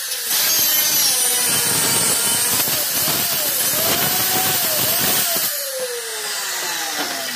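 Handheld circular saw cutting through 18 mm plywood, its motor whine wavering under load as the blade runs along the line. About two-thirds of the way in the cut ends and the motor winds down, its whine falling steadily in pitch.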